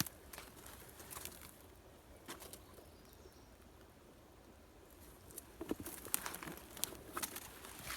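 Faint rustling and crackling of brush and twigs underfoot as someone moves on foot through swampy undergrowth, with a quieter stretch in the middle and a cluster of crackles in the second half.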